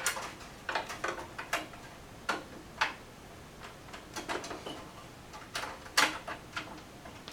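Metal clicks and knocks of a blank expansion-slot cover (dummy panel) being handled and fitted into the back of a computer case: a string of separate, uneven ticks and taps.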